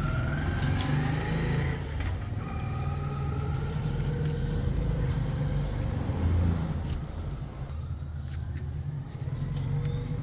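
Motor vehicle engine running close by as a steady low rumble, with a pitched whine that rises slowly twice in the first few seconds, as when it pulls away.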